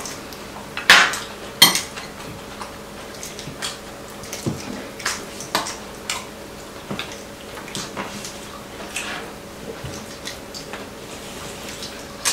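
Metal chopsticks and spoons tapping and clinking against ceramic bowls and plates, in scattered light clicks, the loudest about a second in.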